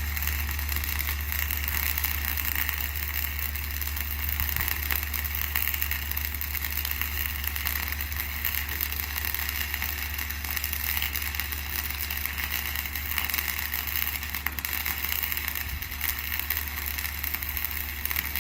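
A vehicle engine idling with a steady low hum, under a constant hiss with fine patter that runs throughout.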